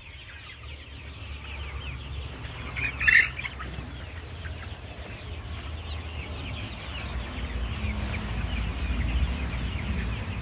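A flock of desi chickens clucking and chirping, with one louder squawk about three seconds in. A low rumble grows toward the end.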